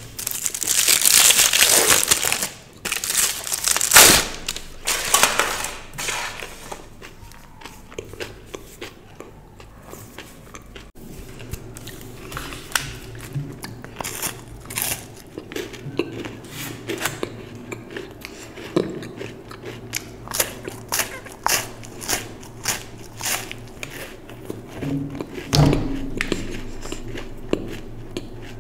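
Foil-and-paper chocolate wrapper crinkling as it is pulled off, with a sharp crackle about four seconds in. After a quieter stretch, crisp snaps of teeth biting through a chocolate bar and the chewing that follows, in a string of short clicks.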